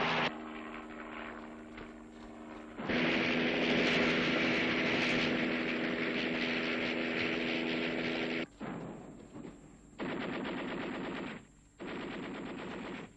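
Automatic gunfire from a machine gun, over a steady helicopter engine drone in the first part. The drone stops about eight and a half seconds in, and three short separate bursts of rapid fire follow.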